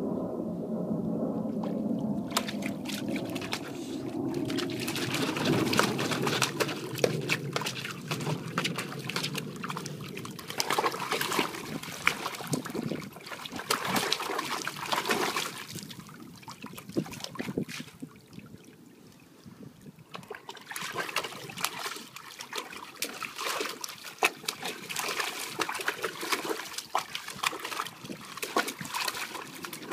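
Old English Bulldogge pawing and stomping in the water of a plastic kiddie pool, making constant irregular splashes, with a brief quieter lull about two-thirds of the way through.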